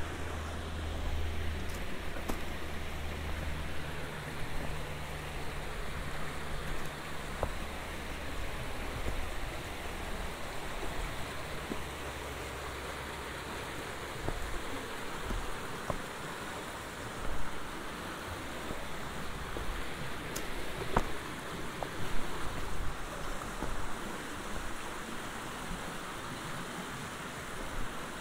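Mountain river rushing over rocks in shallow rapids, a steady even hiss. A low rumble underlies the first few seconds, and a few short knocks come in the second half.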